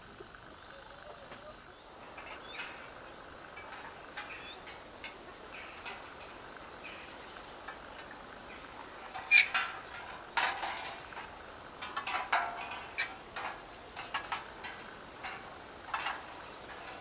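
Copper fish mobile swaying, its metal pieces giving light metallic clinks and knocks: sparse and faint at first, then a quicker run of sharp clinks from about halfway through, the loudest just past the middle.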